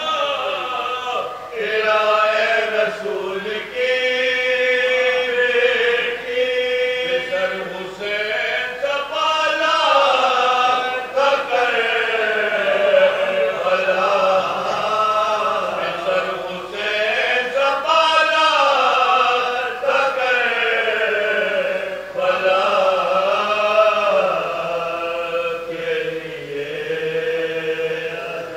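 Men's voices chanting an Urdu marsiya, the unaccompanied elegy for the martyrs of Karbala, in long sung lines that rise and fall in pitch.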